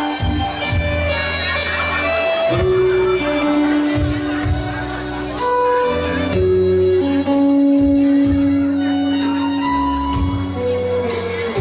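Live band playing the instrumental introduction to a song: a lead melody of long held notes stepping in pitch over bass and regular drum and cymbal hits.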